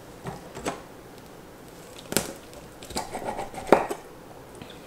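Chef's knife cutting raw rabbit directly on a granite countertop: several irregular sharp knocks and clicks of the blade meeting the stone and the meat, the loudest about three and a half seconds in.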